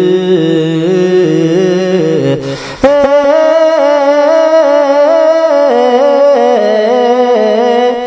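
Ethiopian Orthodox Ge'ez liturgical chant, sung without instruments in long melismatic notes that waver in pitch. A lower line breaks off with a short breath about two and a half seconds in, then the chant resumes louder and at a higher pitch.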